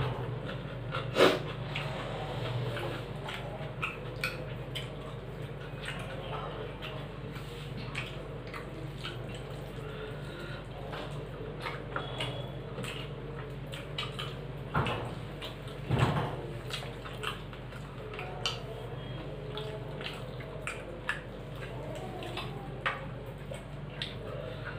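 Eating by hand from steel plates: wet squishing of rice and curry mixed with the fingers, and chewing, with many small clicks and a few louder knocks from the steel dishes, about a second in and again around the middle. A steady low hum runs underneath.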